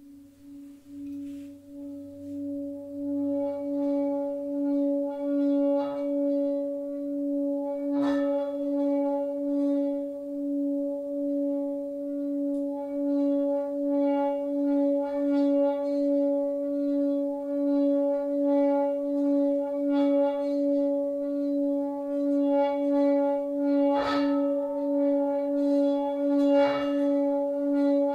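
Singing bowl rubbed around its rim, its hum swelling over the first few seconds into a steady, slowly pulsing tone with bright overtones. A few soft knocks come through it.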